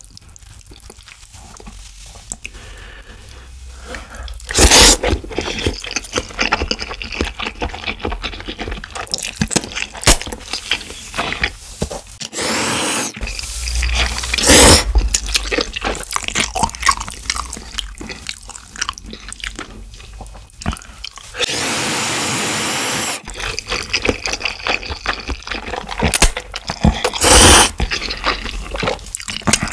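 Close-miked eating of jajangmyeon noodles in black bean sauce: wet chewing and smacking, broken by four loud noodle slurps, the longest lasting nearly two seconds.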